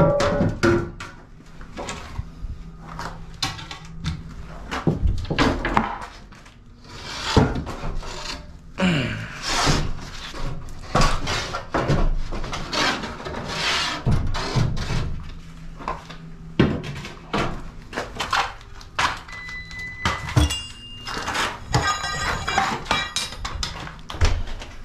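Irregular knocks, thunks and scrapes of tools and wiring being handled at an opened electrical outlet box. A brief steady high tone sounds late on, followed by a quick run of clicks.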